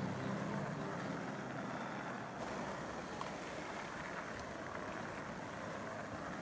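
Steady rolling rumble of skateboard wheels on asphalt, with the tail of background music fading out in the first second.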